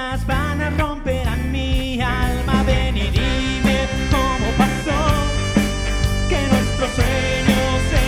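Rock band playing live: a lead vocal sung over electric guitar, electric bass and drum kit.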